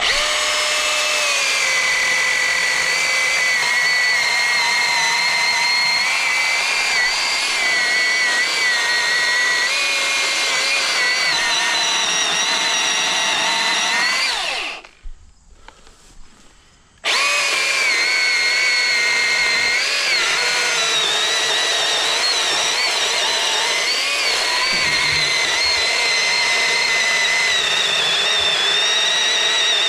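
Milwaukee M18 Fuel 2727-20 battery chainsaw running under load while cutting through a tree trunk, its electric motor whine wavering in pitch as the chain bites. About halfway through it winds down and stops, then starts again abruptly two seconds later and keeps cutting.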